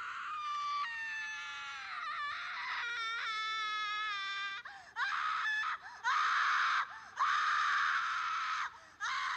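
Recorded scream sound effect played through a phone speaker: a long high-pitched wavering wail, then four shorter shrill screams in a row.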